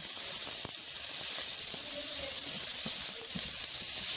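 Chopped onion sizzling in hot ghee in a frying pan: a steady high hiss.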